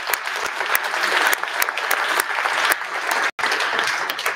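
Audience applause, many people clapping together, with a momentary dropout a little over three seconds in.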